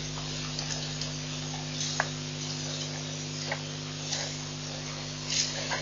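Steady electrical hum and hiss from a waterhole live-stream microphone, with scattered short clicks and chirps. The sharpest click comes about two seconds in, and a louder cluster of chirps comes near the end.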